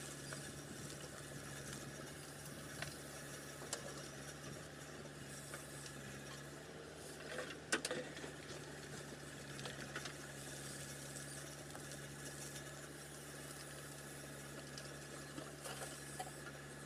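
Diesel engine of a JCB 3DX backhoe loader running steadily as its rear bucket digs and loads earth and stones, with scattered clicks and knocks of stones and a short clatter about eight seconds in.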